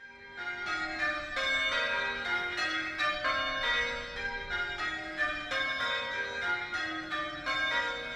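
Church bells ringing changes: a fast run of struck bells, several strokes a second, stepping down the scale in rounds. The bells start abruptly.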